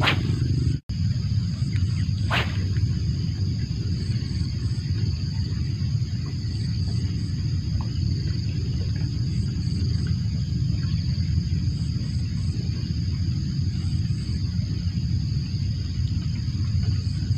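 Casting a spinning rod: a quick swish right at the start and a second short hiss about two and a half seconds in, as the line flies out and the lure lands. Under it runs a steady low rumble with a constant thin high whine.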